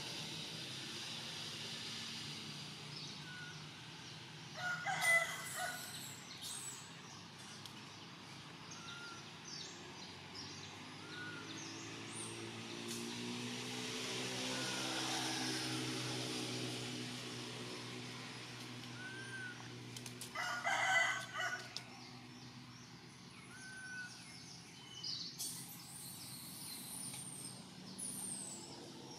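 Two short, loud animal calls, about 5 seconds and 21 seconds in, over a steady outdoor background with a few faint brief chirps. A low droning hum swells and fades in the middle.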